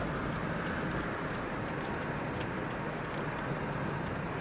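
Steady tyre and road noise inside the cabin of a car being towed with its engine off, coasting in neutral.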